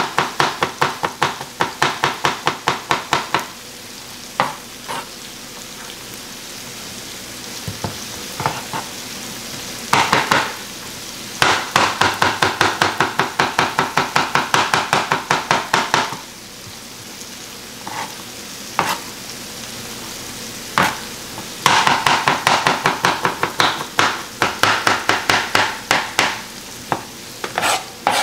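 A chef's knife dicing a potato on a plastic cutting board in quick runs of rapid strikes, three runs with pauses and single cuts between them. Chicken pieces sizzle steadily in a frying pan underneath.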